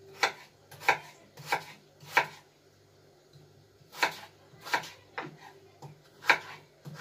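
Kitchen knife slicing raw potatoes into sticks for fries on a wooden cutting board: a sharp knock of the blade on the board about every two-thirds of a second. Four cuts, a short pause, then six more.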